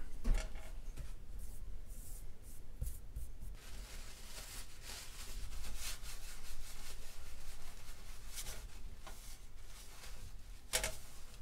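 Repeated scrubbing strokes of a hand wiping the stovetop surface, with a thump right at the start and another sharp knock near the end.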